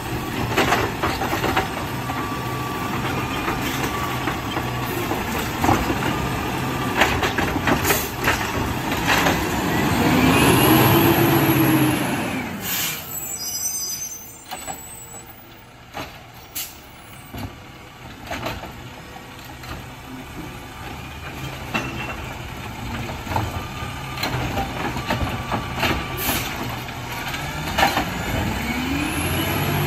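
Autocar ACX garbage truck with a Dadee Scorpion automated side-loader body: the engine runs and revs up while the hydraulic arm dumps and sets down a recycling cart, with metallic clanks. The revving swell about ten seconds in is the loudest part. A short hiss of air brakes follows, and then the truck pulls away, its engine quieter, rising again near the end.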